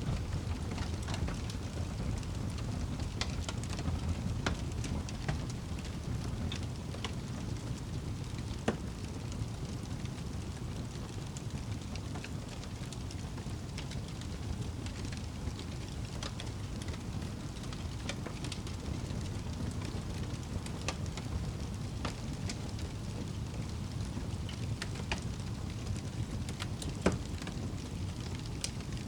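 Wood fire burning in a fireplace: a steady low rumble of flames with scattered crackles and sharp pops from the logs, two of them louder, a little under 9 seconds in and near the end.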